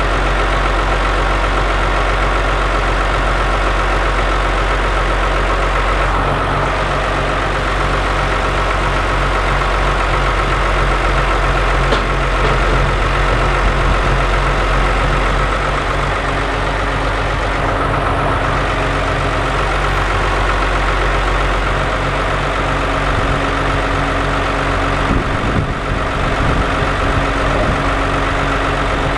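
An engine idling steadily with an even, unchanging drone, the kind of sound made by a vehicle engine left running to drive a crane's hydraulics.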